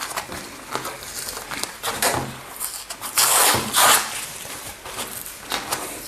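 Layers of paper and cardboard inside a Qi charging pad being torn and pulled apart, a series of scratchy rips and rustles, the loudest about three to four seconds in.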